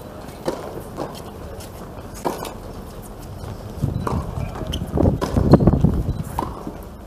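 Tennis rally on an outdoor hard court: racket strikes and ball bounces come as sharp knocks every second or so, with players' footsteps. A louder low rumble runs from about four seconds in to about six and a half.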